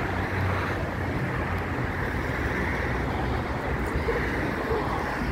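Steady noise of road traffic running along a city avenue, a continuous even hiss and rumble of passing cars.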